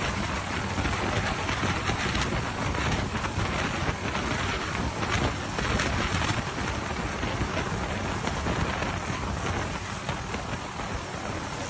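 A helicopter hovering close by: the steady rush of its rotor and engine, a dense noise with a fast flutter underneath.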